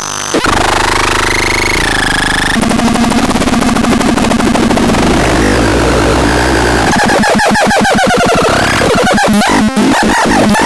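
Synthesizer producing harsh, noisy electronic tones: gliding pitch sweeps at first, then a dense buzzing drone, breaking into a rapid stuttering pulse about seven seconds in.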